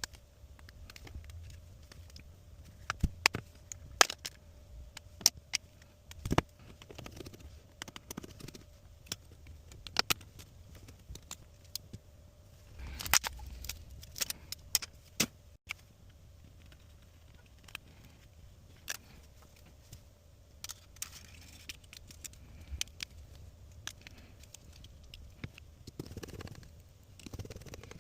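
Irregular sharp clicks and small metallic taps of tools and phone parts being handled, with a rustling cluster about 13 seconds in and another near the end, over a faint steady hum.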